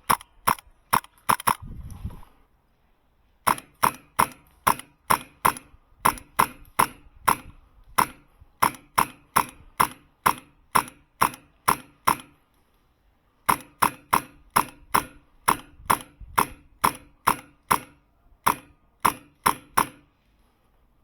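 HPA-powered airsoft MK12 DMR rifle firing rapid shots, sharp pops at about three a second, in strings broken by short pauses.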